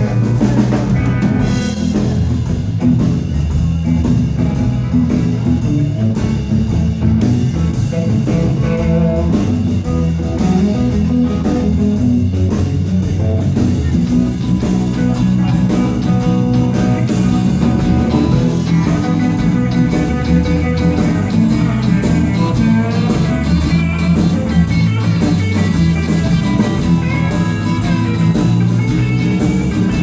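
Live rock band playing an instrumental passage with no vocals: electric guitars, bass guitar, acoustic guitar and drum kit, loud and steady throughout.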